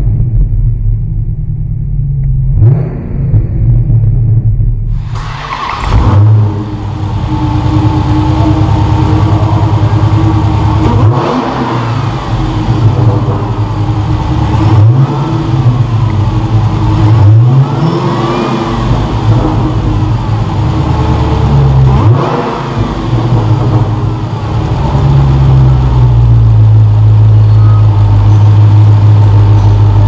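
Dodge Challenger SRT Hellcat's supercharged HEMI V8 idling, then running much louder from about five seconds in. Its pitch rises and falls several times as the throttle is blipped, and it settles into a steady fast idle near the end.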